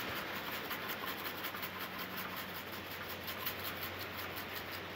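Quiet outdoor background: a steady low hiss with insects chirping faintly in a fast, even, high-pitched pulse.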